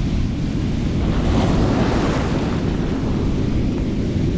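Ocean surf breaking and washing up a beach, with wind buffeting the microphone; the wash swells about a second in and eases off after two and a half seconds.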